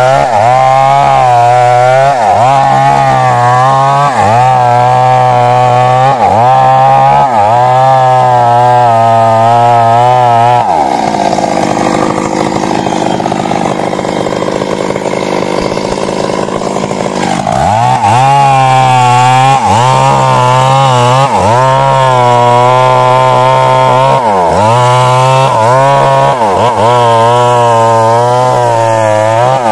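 Stihl MS 382 two-stroke chainsaw running at full throttle through wood, its engine note dipping and recovering every couple of seconds under the cutting load. About eleven seconds in, the revs fall back for some seven seconds, then the saw is throttled up and cuts on.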